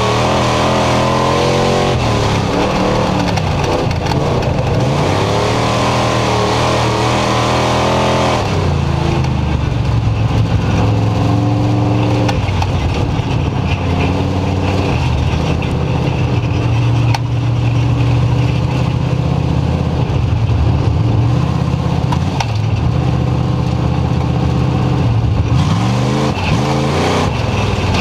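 Dirt-track race car's engine from inside the cockpit, running hard in a race. The revs climb, then drop as the driver lifts for the turns, over and over every few seconds.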